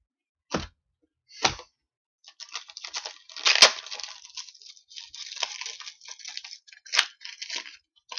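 Two soft knocks of cards set down on a table, then a foil trading-card pack wrapper being torn open and crinkled, with two sharp crackles in the middle and near the end.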